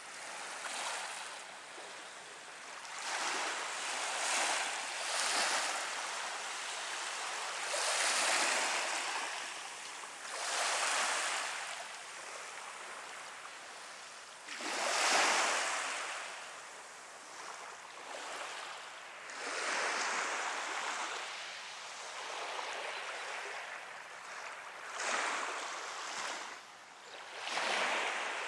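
Small waves washing onto a sandy beach, with a swell of surf noise rising and fading every few seconds.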